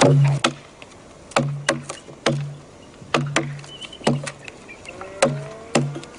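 About ten chopping blows of a hand tool cutting into a wooden log, in an irregular rhythm of one to two a second. Most blows are followed by a short low ring from the log.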